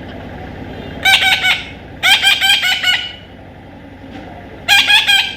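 A parrot calling in three bursts of quick, repeated shrill squawks: one about a second in, a longer run at two seconds, and another near the end.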